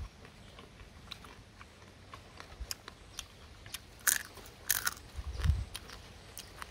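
Cooked crab being bitten and chewed, the shell cracking between the teeth: scattered small crunches, with two louder cracks about four and nearly five seconds in.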